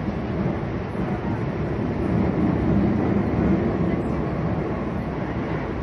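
Running noise heard inside a Toei 10-300 series subway car travelling between stations: a steady low rumble of wheels and motors, swelling slightly in the middle.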